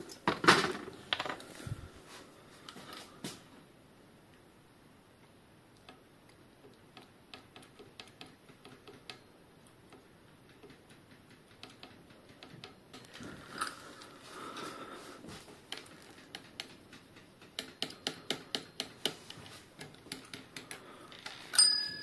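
Light mechanical clicks and ticks from bicycle parts and tools being handled. There are a few sharp knocks early on, a quieter stretch, then a run of quick ticks, about four a second. Near the end comes a loud metallic clink that rings briefly.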